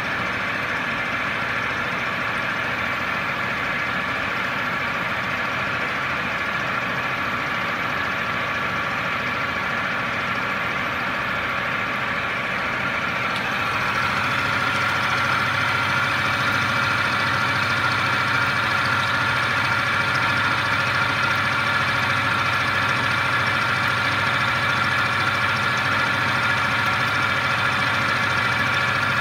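Mikron WF21C milling machine cutting metal with a 10 mm HSS end mill: a steady machining whine over spindle and cutting noise, growing louder about halfway through.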